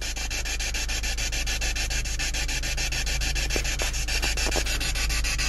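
Steady rushing noise with a low rumble, like wind buffeting a microphone through an open vehicle window, with a few faint clicks a little past the middle.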